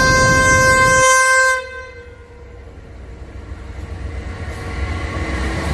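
Train horn sounding a chord over the heavy rumble of a passing train, cutting off about a second and a half in. A quieter rumble follows, growing louder toward the end.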